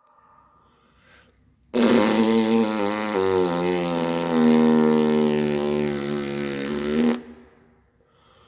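A long fart noise: a steady, buzzing, pitched blast that starts suddenly about two seconds in, holds for about five seconds and cuts off abruptly.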